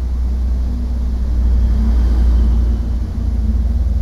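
A steady low rumble that grows a little louder toward the middle and eases slightly near the end, like a vehicle or machinery running in the background.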